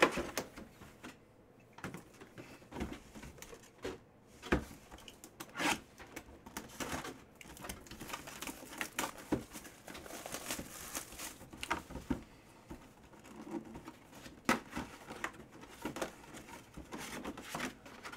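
Cardboard collectibles box being handled and turned over: scattered knocks and scrapes with some rustling of cardboard and plastic.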